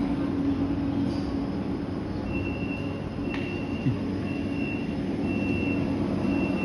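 Suzhou tram running: a steady rumble with a low hum. From a little over two seconds in, a high electronic beep repeats about once a second, and there is a brief knock near the middle.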